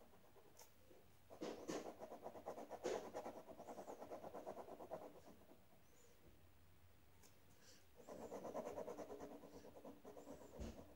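Ballpoint pen scratching back and forth on notebook paper while drawing letter strokes, faint, in two spells of a few seconds each.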